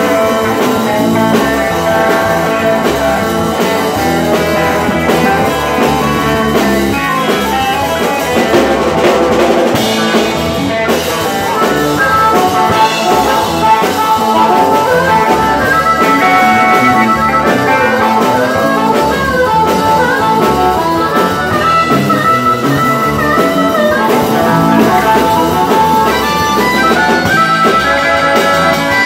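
Live blues-rock band playing: electric guitar, bass and drums, with a harmonica played into a vocal microphone carrying the lead over the band.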